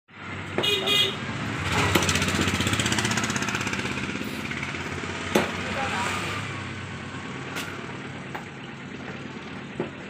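Motor vehicle engine running with an even pulse, loudest about two seconds in, then slowly fading. A few sharp knocks stand out over it.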